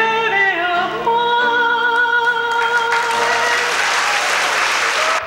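A woman singing with musical accompaniment, ending on a long held note, as an audience breaks into applause over it; everything cuts off suddenly at the very end.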